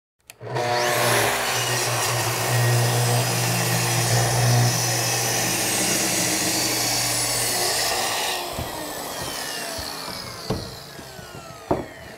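Track saw starting up and ripping a narrow strip off a piece of wood trim for about eight seconds, then switched off, its blade winding down with a falling whine. A few sharp knocks near the end.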